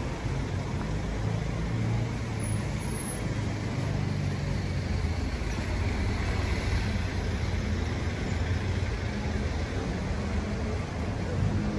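Steady street traffic noise, with car engines running and an even rumble and hiss that hold throughout.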